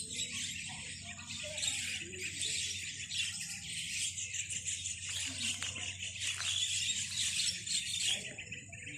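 A large flock of starlings calling continuously, a dense chorus of overlapping high chattering calls, with a low steady hum underneath.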